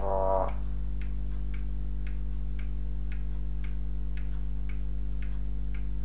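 An African grey parrot's voice sounds briefly at the very start, then steady, even ticking like a clock follows, about two ticks a second, over a constant low hum.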